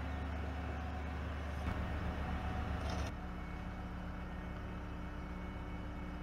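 Diesel engines of an asphalt paver and the dump truck feeding it, running steadily. About three seconds in, the low hum drops and sounds more distant.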